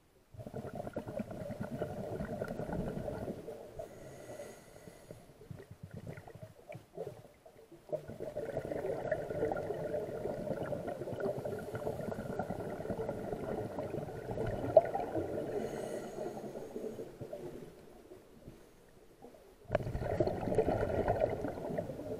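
Scuba regulator exhaust bubbles as a diver breathes out underwater: three stretches of bubbling, the middle one long, with quieter gaps between them for the in-breaths.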